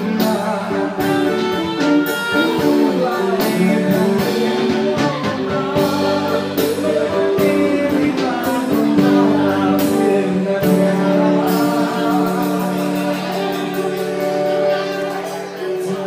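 Live band playing a song: a singer over electric guitar and drum kit, with a steady drum beat.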